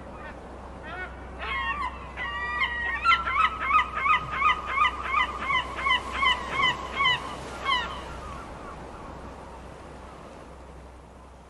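Gulls calling: a few scattered cries, then a fast run of loud, repeated calls at about three a second from about three to eight seconds in, fading away afterwards.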